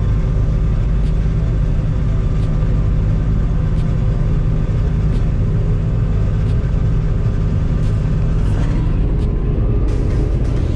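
Heavy engine running steadily with a low rumble.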